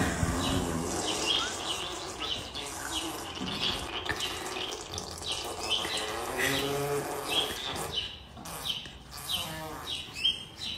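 Horse lying flat asleep in its stall, letting out low groaning vocal sounds in its sleep, the clearest one about six seconds in. A high chirp repeats about twice a second in the background.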